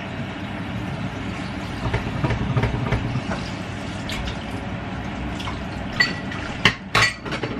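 Tap water running steadily into a sink while dishes are washed by hand, with a few sharp clinks of plates in the last couple of seconds.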